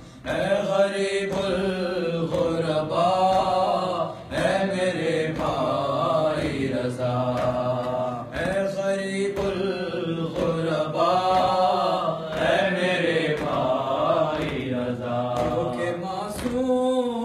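A young man's voice chanting an Urdu noha, a mourning lament, into a microphone in long melodic phrases of about two seconds each, with no instruments.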